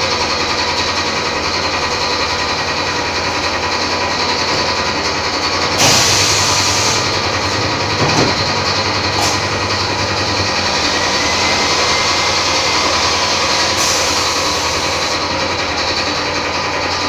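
Thermocol plate thermoforming machine running with a steady mechanical hum. A burst of hiss comes about six seconds in and another near the end, with a sharp click or two in between.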